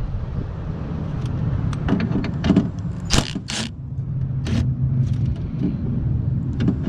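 A steady low hum, like a nearby vehicle engine running, under several sharp metallic clicks and clinks from hand tools working on the 10 mm bolts that hold the window glass to the regulator, with the clicks bunched about two to three and a half seconds in.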